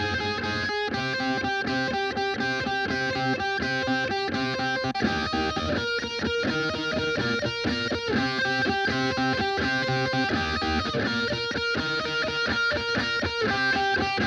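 Electric guitar played through a Blackstar HT-DUAL valve distortion pedal into a Blackstar HT-1 valve amp: overdriven chords that ring on and change every second or two.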